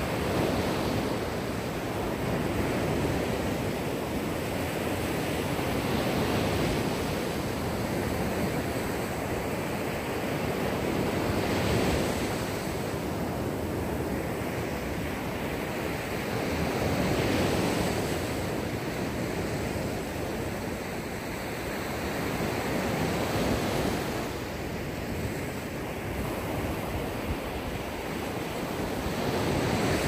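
Mediterranean Sea waves breaking and washing up a beach: a continuous rush of surf that swells and eases about every six seconds as each wave comes in.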